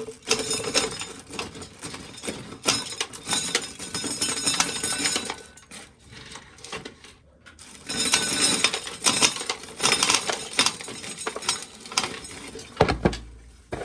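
Corn sheller stripping kernels off the cob, the dry kernels rattling and clinking as they are thrown into a plastic pail, in two long stretches with a short lull between. A low thump comes near the end.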